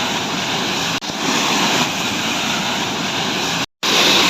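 Steady rushing noise of falling water from a waterfall, cut abruptly about a second in and dropping out briefly near the end.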